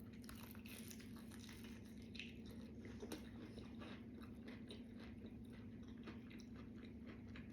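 Faint crunching and chewing as a fried spicy chicken wing dipped in gravy is bitten into and eaten, with a steady low hum underneath.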